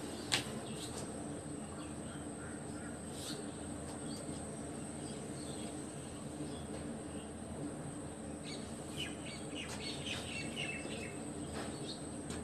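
Faint steady background hiss and hum with a single click just after the start, and faint, scattered bird chirps during the last few seconds.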